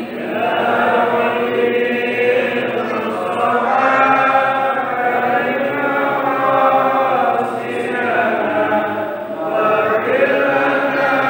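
A group of voices chanting a devotional Arabic song (sholawat) together in long, held melodic lines.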